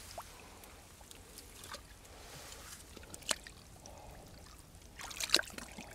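Faint trickling and splashing of shallow water, with scattered sharp clicks and a louder cluster of splashes about five seconds in.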